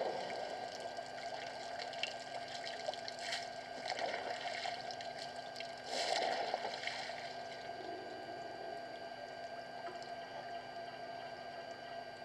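An elephant drinking at a waterhole: water splashing and pouring in bursts, loudest about six seconds in.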